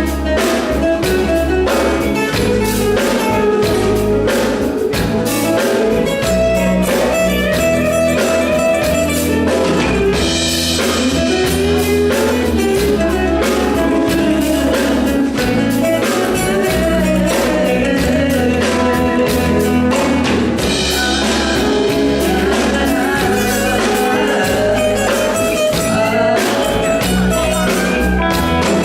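Live band playing a song through a PA during a sound check: drum kit keeping a steady beat, bass and guitars, with a singing voice.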